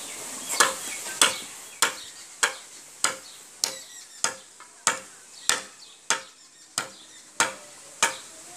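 A broad curved blade chopping into a green bamboo pole in a steady rhythm, about three sharp strokes every two seconds, roughly thirteen in all.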